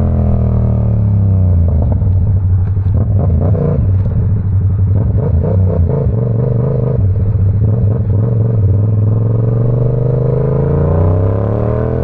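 Yamaha R7's parallel-twin engine running under way. Its pitch falls in the first second as it eases off, holds steady while cruising, then rises near the end as it accelerates again.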